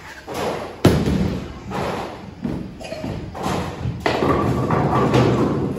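Bowling ball released onto the wooden lane, landing with a loud thud just under a second in, then rumbling steadily as it rolls down the lane.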